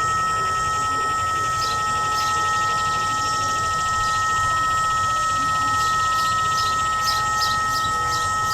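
Whelen WPS-3016 electronic siren malfunctioning, putting out a steady buzzing tone instead of its test signal. The uploader guesses the fault is that the siren could not rotate to its desired position.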